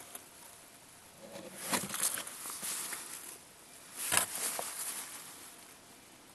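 Handling noise: two bouts of rustling with light clicks and knocks, the first starting about a second in and the second, shorter one about four seconds in.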